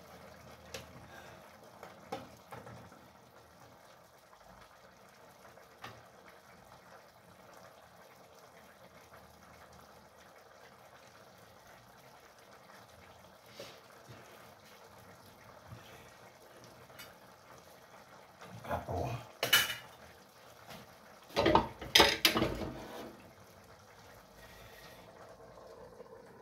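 A metal ladle clinks now and then against a frying pan of simmering stew over a faint steady hiss. Near the end come two louder bursts of clattering: cookware, utensils and a pan lid knocking together.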